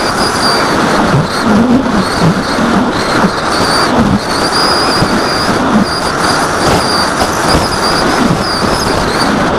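Electric motor and propeller of an AXN foam RC plane heard from its onboard camera in flight: a steady high whine that wavers slightly with the throttle, over loud wind rush on the microphone.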